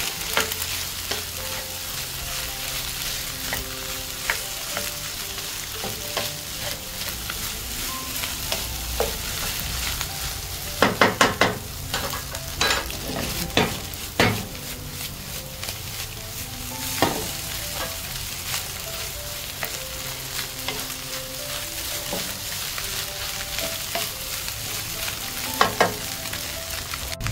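Fried rice sizzling in a hot pan while a spatula stirs and breaks up the clumped rice. A quick run of four knocks of the spatula on the pan comes about eleven seconds in, with scattered single knocks after.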